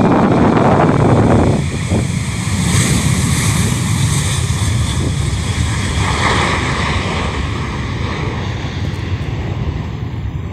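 Boeing 737-800's CFM56-7B jet engines at takeoff thrust: a steady, loud roar and rumble as the airliner rolls, lifts off and climbs away, loudest in the first second or two and easing slightly towards the end.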